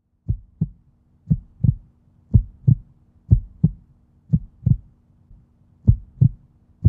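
Heartbeat sound effect: about six paired lub-dub thumps, roughly one beat a second, over a faint steady hum.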